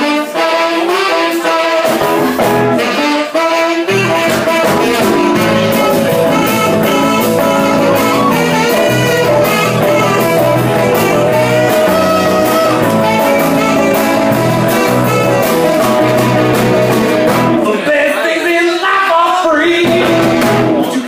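Live blues-rock band playing an instrumental passage: saxophone over electric guitars, electric keyboard and drums, with a steady beat.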